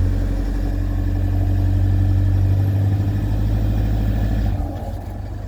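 Toyota Prado D4D common-rail diesel engine idling steadily, fitted with a genuine new set of injectors that has cured its injector knock. The sound drops in level about four and a half seconds in.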